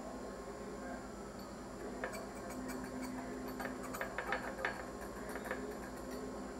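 Small clicks and taps from handling a petri dish and a wire inoculation loop, a quick run of them in the middle, over a steady low hum.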